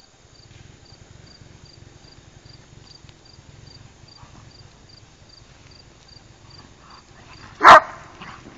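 A dog barks once, loud and short, near the end, while at play. Crickets chirp in a steady beat, about two to three chirps a second.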